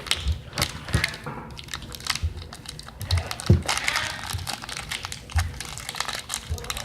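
Candy wrapper crinkling and crackling as candy is unwrapped and eaten close to the microphone: many irregular sharp clicks, with soft thumps about once a second.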